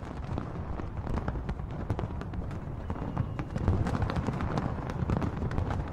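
Aerial fireworks going off in a fast, irregular string of bangs and crackles over a continuous low rumble, loudest about two-thirds of the way through.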